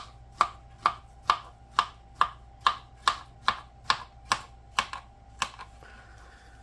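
Kitchen knife slicing a banana into rounds on a plastic cutting board, the blade tapping the board about twice a second in an even rhythm, then stopping about five seconds in.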